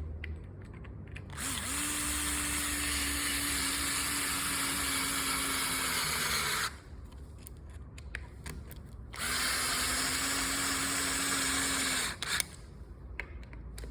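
Small power drill driving screws in two runs of about five and three seconds, each with a steady motor whine that sags slightly in pitch just before it stops.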